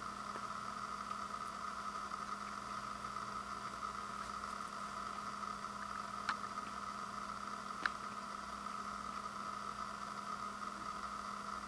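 Steady background hum and hiss of room noise, with two short clicks about six and eight seconds in.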